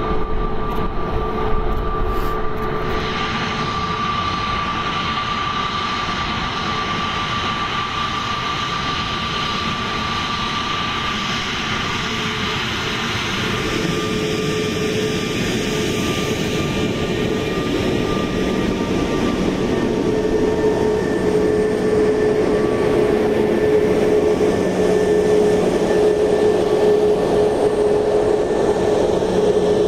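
Airbus A321neo's CFM LEAP-1A turbofans whining at taxi power as the airliner taxis past. A steady high whine in the first half gives way about halfway through to a lower steady tone, and the sound grows slightly louder near the end.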